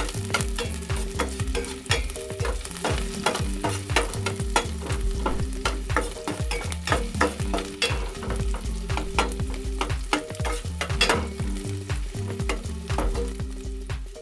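Chopped garlic and onion sizzling in hot oil in a stainless steel pot while a utensil stirs them, clicking and scraping against the pot many times. This is the sauté stage of a tomato-sauce dish.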